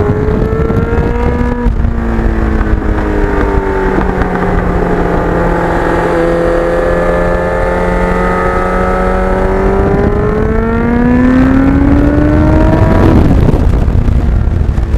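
Kawasaki GPX750R inline-four motorcycle engine with a Norton muffler, under way: the engine note climbs, drops at an upshift about two seconds in, holds fairly steady, then climbs again and drops at another shift near the end.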